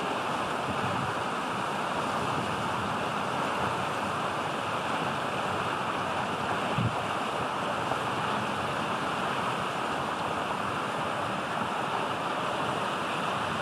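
Steady rushing outdoor background noise, even throughout, with a single brief knock about seven seconds in.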